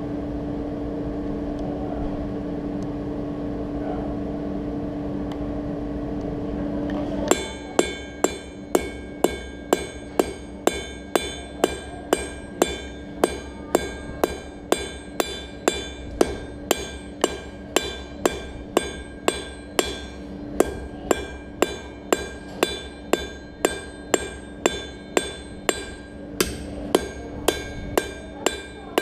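A steady hum for the first seven seconds, then a blacksmith's hand hammer striking steel on an anvil in an even rhythm, about two blows a second, each blow ringing.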